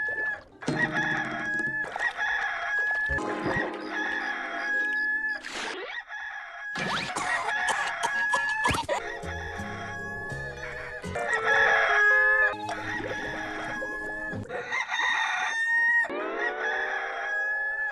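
Rooster crowing: the same Hollywood Edge stock rooster-crow effect heard again and again in quick succession, each crow cut off abruptly and followed by the next. Near the end one crow is overlaid by a rising, gliding sound.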